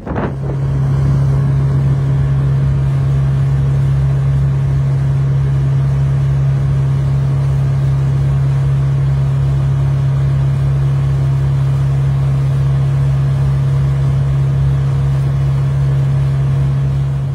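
A steady, loud low hum with fainter steady tones above it, like an engine's drone. It swells in at the start and fades away at the end.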